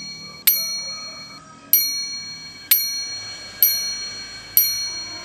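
A small bell struck five times, about once a second, each strike ringing with the same bright tone and fading before the next.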